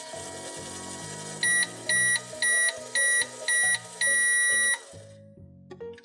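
Just Like Home toy microwave's timer beeping: five short high beeps about half a second apart, then one longer beep, signalling that the cooking cycle is finished. Background music plays under it and fades out just after the beeps.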